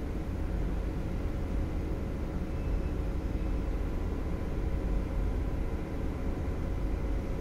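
Motorised Venetian blind sealed between two glass panes, its small motor running steadily as it raises the blind, under a steady low rumble and hiss.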